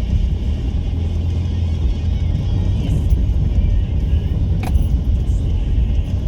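Jeep Liberty 2.8 CRD's four-cylinder turbodiesel engine with a deep, steady rumble while driving off-road. There is a sharp knock about two-thirds of the way through.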